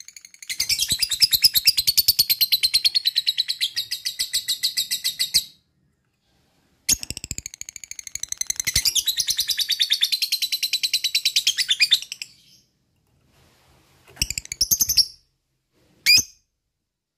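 Lovebird ngekek: two long, rapid rattling trills of about five seconds each, high-pitched, with a short silence between them, then two brief chirps near the end.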